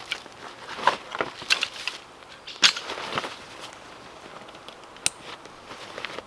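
Tent gear being handled and laid out: rustling with a string of sharp clicks and knocks, the loudest about two and a half seconds in and a lone click about five seconds in.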